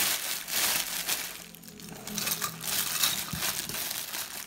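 Clear plastic wrapping crinkling and crackling irregularly as hands press stationery items down into a cardboard box.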